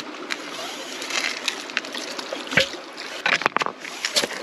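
Hand-pumped suction dredge gun slurping up muddy water and gravel from a bedrock crevice, a steady sloshing hiss broken by several sharp clicks.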